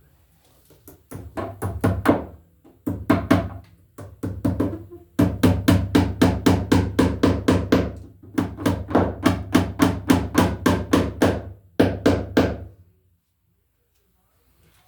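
Hammer driving plastic cable staples over NM cable into a wooden running board: several runs of quick strikes, about four or five a second, with short pauses between the runs. They stop near the end.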